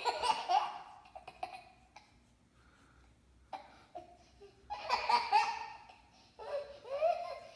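A young child laughing in three bouts, ticklish laughter from having the bare feet rubbed with ointment, with a quiet pause of a couple of seconds between the first and second bouts.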